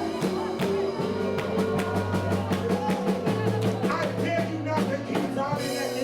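Worship band music with a steady beat of drum strokes over held bass notes.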